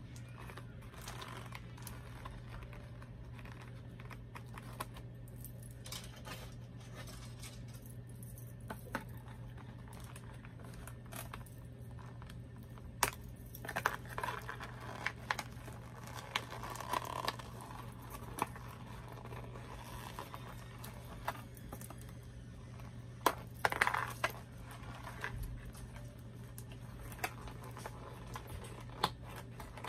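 A boxed doll's packaging being handled: scattered sharp clicks and taps with short bursts of crinkling plastic and cardboard, busiest about halfway through and again a little later, over a steady low hum.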